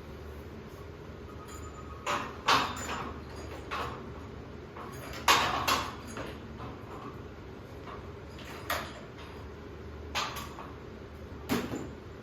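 Scaffolding equipment being handled, with irregular knocks and clanks, about eight over ten seconds, some with a short ring.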